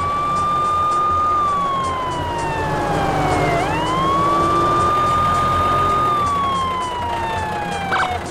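A wailing siren: the pitch rises quickly, holds high for a moment, then slides slowly down, and this happens twice, with a low steady beat underneath.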